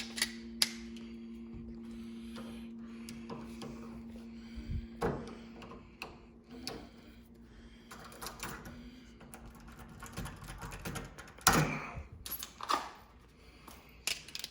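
Metal clicks, knocks and rattles of an old door lock's latch hardware being forced and worked loose from a door. The loudest knock comes near the end.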